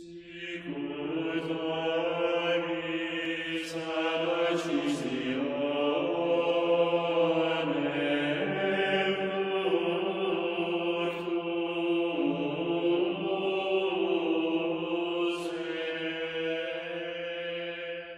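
Liturgical chant sung by voices in long, sustained notes that move slowly step by step, fading out near the end.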